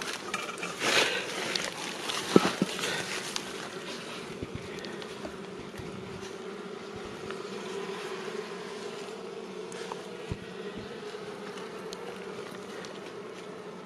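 Swarm of honeybees buzzing steadily around a hive. In the first few seconds there is rustling and a few knocks from handling, the sharpest about two and a half seconds in.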